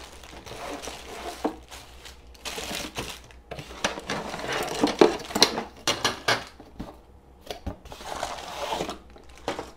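Packaging crinkling and rustling as a cat window perch kit is pulled out of its box, with scattered sharp clicks and knocks from the parts being handled.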